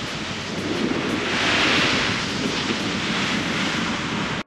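Wind buffeting the microphone over the rushing hiss of a boat's wake while the boat runs at trolling speed on open ocean. The noise is steady, swells slightly midway, and cuts off suddenly at the very end.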